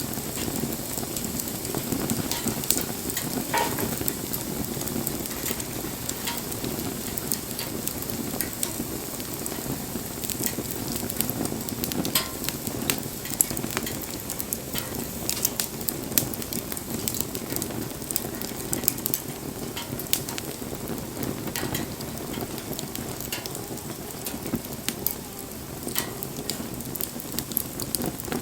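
Wood bonfire burning: a steady low rush of flames with frequent, irregular sharp crackles and pops.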